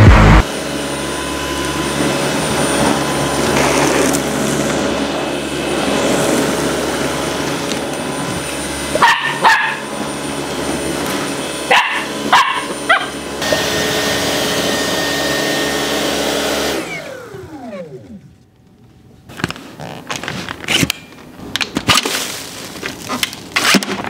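Dyson V11 Outsize cordless stick vacuum running steadily while a Samoyed puppy barks over it a few times, about nine and twelve seconds in. About seventeen seconds in the vacuum switches off and its motor winds down in a falling whine, followed by scattered clicks and knocks.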